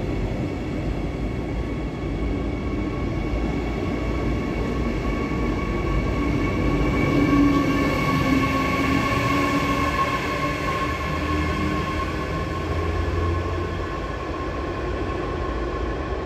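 Regional express train of double-deck coaches departing an underground station, pushed by a DB class 147 electric locomotive at the rear: rolling wheels under a whine of several steady tones from the locomotive, loudest as it passes about seven seconds in.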